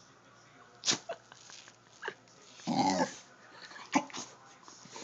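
A dog making a string of short, sharp noises about a second apart, the longest and loudest near the middle.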